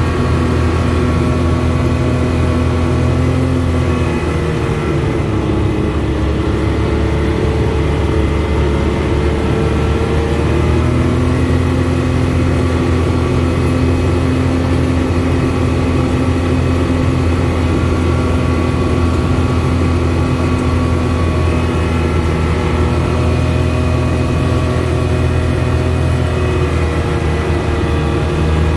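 Car engine and road noise heard from inside the cabin while driving: a steady hum whose engine note drops about four seconds in and picks back up around ten seconds.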